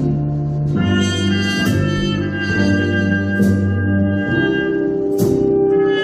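Big band playing jazz: brass and saxophones holding chords over a plucked double bass, with a sharp hit about every two seconds.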